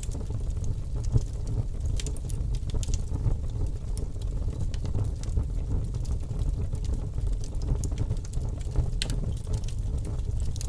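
Fire crackling, with irregular sharp pops over a steady low rumble.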